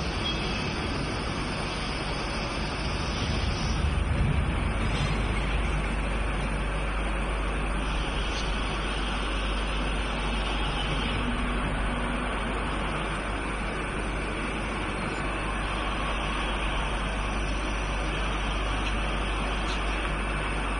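Steady factory noise of machinery running: a continuous low hum under an even rushing noise, with no distinct tool clicks standing out.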